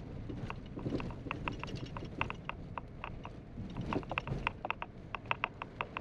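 Vehicle on the move: a low steady rumble under a fast, irregular patter of sharp ticks, several a second.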